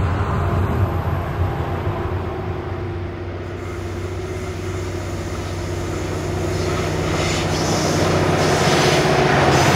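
Pacific National 82 class diesel-electric locomotive, its EMD 12-710 diesel engine running with a steady low drone that grows louder as it approaches and passes. Wheel and rail noise rises near the end as the flat wagons follow.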